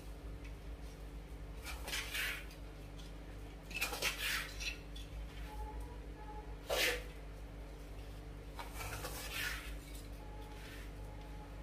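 Metal spoon scraping and stirring through crumbly churma in a steel bowl, in separate strokes a second or two apart, the sharpest about seven seconds in. A steady low hum runs underneath.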